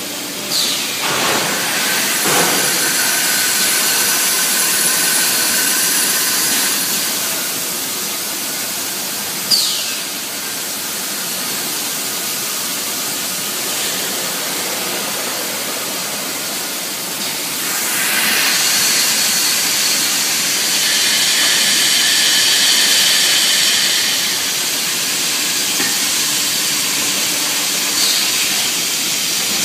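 Steady loud hiss of steam and air from EPP foam moulding machines running in production. Three short falling whistle-like sweeps come about half a second in, near ten seconds and near the end, and the hiss swells louder for several seconds past the middle.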